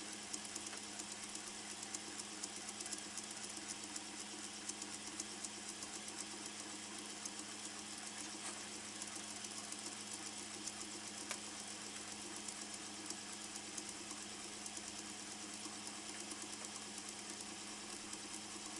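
Laser engraver running while it engraves a drinking glass turned on a rotary attachment: a steady hum with fast, light ticking.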